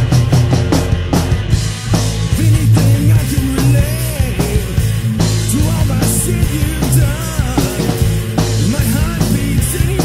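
Loud punk-tinged alternative rock song: a full band with a driving drum kit and crashing cymbals over a heavy low end, with singing carrying a melody from a few seconds in.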